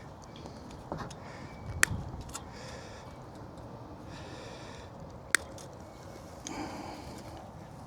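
Fence wire being cut with cutters: two sharp snaps about two and five seconds in, with fainter clicks and breathy sniffing noises in between.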